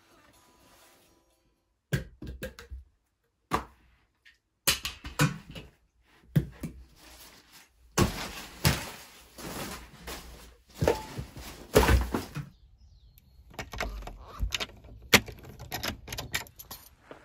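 A run of separate thuds, knocks and rustles as gear is picked up and handled, broken by short dead-silent gaps. Near the end, keys jingle at a door lock.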